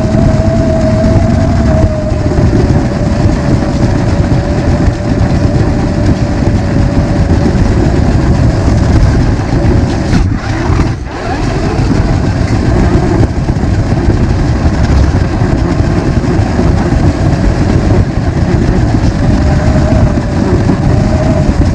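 Radio-controlled rock crawler car running: a steady whine from its electric drive over a loud, continuous rumble, with a brief dip about halfway through.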